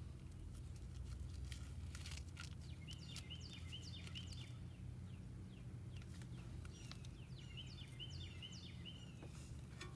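A bird chirping in quick repeated phrases, in two runs a few seconds apart, over a steady low background rumble, with a few faint scattered clicks.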